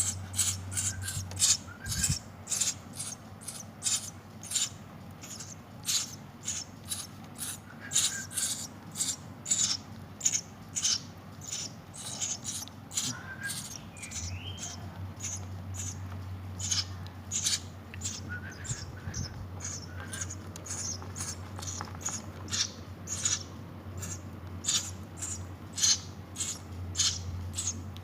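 Eurasian tree sparrow nestlings begging to be hand-fed, giving rapid, short, high-pitched cheeps about two to three a second, with a few lower chirps, over a faint low hum.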